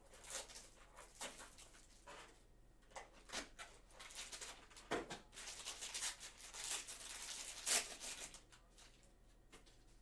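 A trading-card foil pack being opened by hand: the wrapper crinkles and tears in a string of irregular rustles and crackles, louder in the second half with the sharpest crackle a little before the end.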